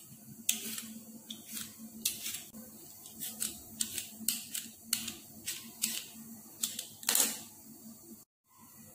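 A hand-held Y-peeler scraping the skin off a cucumber in quick, short strokes, about two or three a second.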